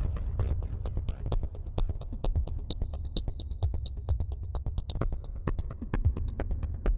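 Homemade modular synthesizer playing an electronic pattern: a steady deep bass under rapid, uneven percussive clicks, with a high pipping tone joining in about three seconds in for a couple of seconds.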